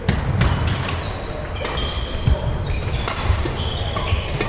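Badminton doubles rally: sharp racket strikes on the shuttlecock every second or so, with short high shoe squeaks on the court floor, echoing in a large sports hall.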